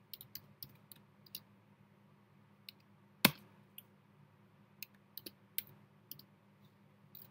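Computer keyboard keys clicking at an irregular pace while code is typed, with one much louder key press a little over three seconds in.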